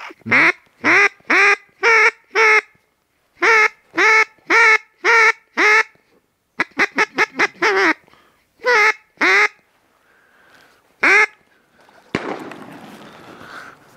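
Loud duck quacks in runs: five, then five, then a quick chatter of about six, then two and a single one. About twelve seconds in, a shotgun shot goes off further away and its report echoes for a couple of seconds.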